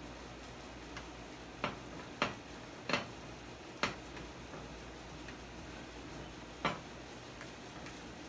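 Spatula knocking and scraping against a frying pan while scrambled eggs are turned and broken up: a handful of sharp, irregular taps, the loudest about two seconds in.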